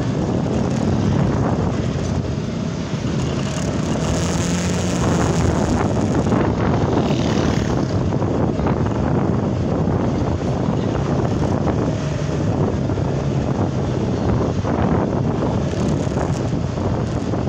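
Vehicle engine running steadily while travelling along a street, with wind rushing over the microphone.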